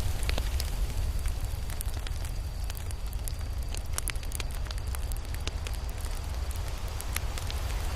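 Campfire burning, with a steady low rumble of flame and frequent sharp crackles and pops at irregular intervals.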